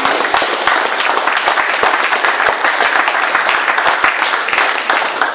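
A roomful of people applauding, a dense, steady clapping that starts to die away near the end.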